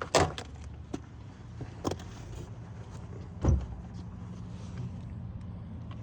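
New brake pads knocking and clicking into the caliper bracket as they are set in place: a few sharp knocks, the loudest just after the start and about three and a half seconds in, over a steady low hum.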